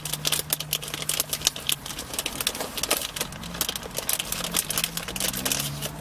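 Dry, crunchy chocolate chip protein cookies being chewed close to the microphone: rapid, irregular crisp crunches, over a low steady hum in the first couple of seconds.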